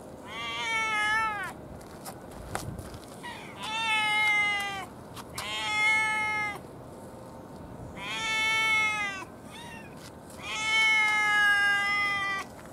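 A cat meowing: five long, drawn-out meows a second or so apart, each rising then falling in pitch, the last the longest.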